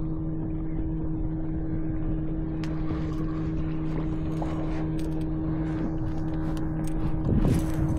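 A boat motor hums steadily over a low rumble, with light scattered clicks and a brief louder knock or splash near the end.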